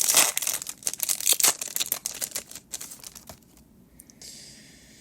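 Foil Pokémon booster pack wrapper crinkling and tearing open, a dense crackle for about three seconds, then dying down to faint rustling.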